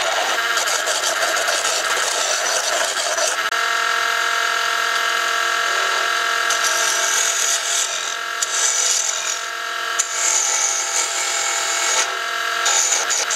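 Wood lathe spinning a whiskey-barrel-stave pen blank on a pen mandrel while a hand-held turning tool cuts it. There is a steady machine whine, with the hiss of the tool cutting wood coming and going in the second half.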